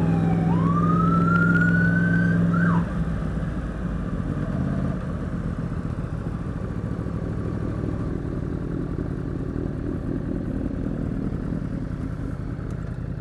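Police siren wailing in the first seconds, a falling then rising sweep that ends in a short chirp, over a motorcycle engine running steadily. The siren stops about three seconds in, and the motorcycle runs on more quietly, as at idle.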